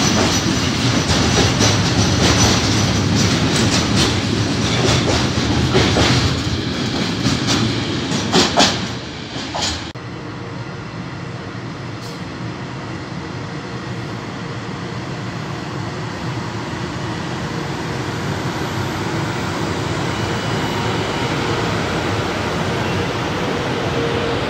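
Container freight wagons rolling past close by, wheels clattering with several sharp clacks until the sound cuts off about ten seconds in. Then a quieter, steady rumble of an FS E.652 electric locomotive hauling a container train approaches, slowly growing louder as it passes.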